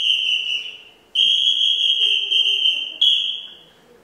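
A mouth whistle blown in long, steady high notes, used as a clown's voice: one note fading out, a long note of about two seconds, then a shorter one that fades away.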